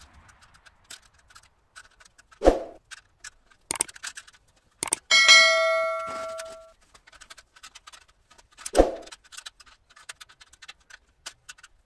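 Steel saw stand being assembled by hand: many small metallic clicks and taps from its parts and fittings, two dull knocks, and one loud clang about five seconds in that rings on for over a second.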